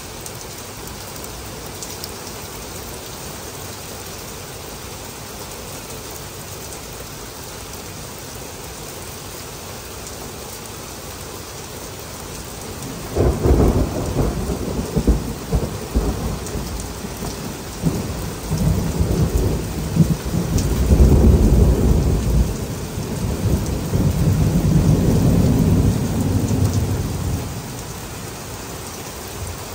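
Heavy rain falling steadily throughout. About halfway through, a long roll of thunder starts suddenly and rumbles on in several swells for around fifteen seconds before fading, while the rain keeps on.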